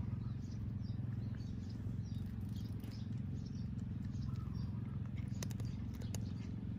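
A cat eating dry kibble, with a few sharp crunching clicks about five and a half to six seconds in. Under it runs a steady low hum, with faint bird chirps scattered through.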